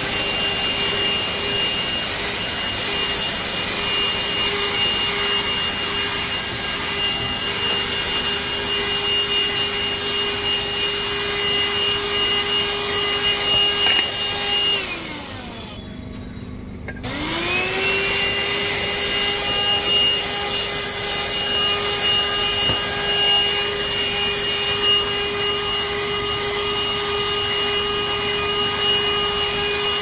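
Voroly 12 V handheld car vacuum cleaner running with its brush nozzle on a rubber floor mat: a steady motor whine over the rush of air. About halfway it is switched off and the whine falls away; a second or two later it starts again and the whine rises as it spins back up.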